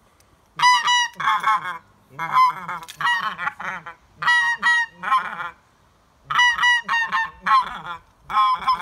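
Graylag goose long-reed call blown by mouth, imitating graylag geese: about every two seconds a burst of a few clear honks followed by quicker, lower chattering notes.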